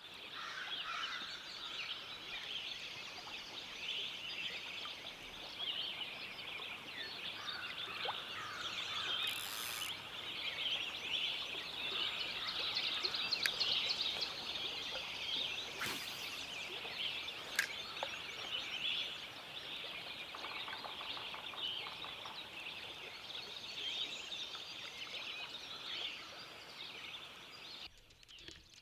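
Dense, continuous chorus of high, rapid chattering animal calls, cutting off abruptly near the end.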